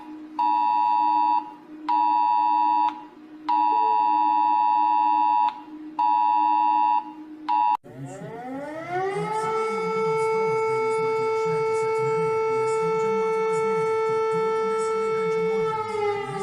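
Emergency alert audio: a two-note alert tone pulsing on and off in irregular beeps of about a second over a low hum, then about eight seconds in a siren winds up from low to a steady high wail, holds, and starts to fall near the end.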